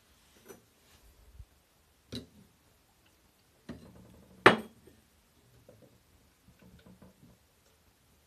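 Scattered light clicks and knocks of hard objects being handled, the loudest a single sharp knock about four and a half seconds in.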